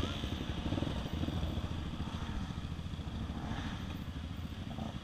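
Dirt bike engine idling, a steady low running sound with no revving.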